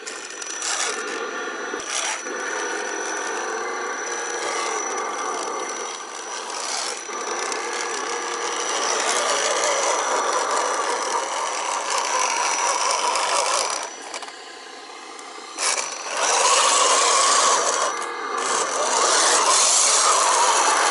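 Scale RC crawler trucks' electric motors and geared drivetrains whirring and grinding as the trucks churn through mud and water, with a thin steady high whine for most of the first two-thirds. The sound drops away briefly about two-thirds of the way through, then comes back louder.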